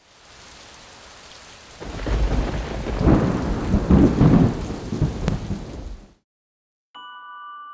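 Thunderstorm sound effect for a logo intro: a hiss of rain that swells about two seconds in into loud rolling thunder rumbles, then cuts off suddenly about six seconds in. Bell-like chime notes start near the end.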